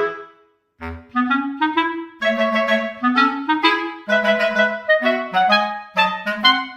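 Background music: a melody of short, quick notes on a reed-like wind instrument, which stops for about half a second just after the start and then carries on.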